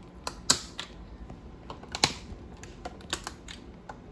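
Irregular sharp clicks and taps, about a dozen, with louder snaps about half a second in and about two seconds in.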